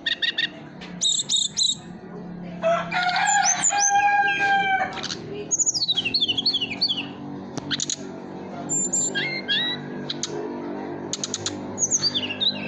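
A small bird, the tledekan bambu, calling in quick bursts of high, sharp chirps and short whistled notes, repeated throughout. A rooster crows once in the background about three seconds in.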